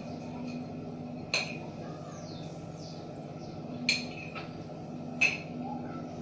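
A metal fork clinks against a bowl three times, the last the loudest. Birds chirp faintly in short falling whistles over a steady low hum.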